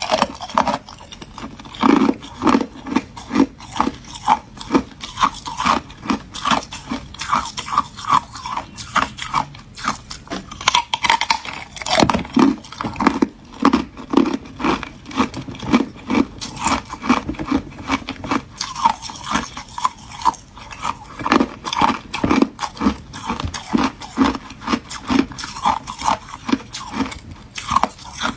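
Hard ice being bitten and chewed close to the microphone: a rapid, continuous series of loud crunches, about three a second, with a couple of brief lulls.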